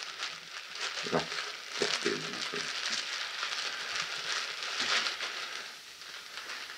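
Steady sizzling hiss with light crackles from the stove where a pot of tripe is heating, broken by a few soft knocks about 1 and 2 seconds in.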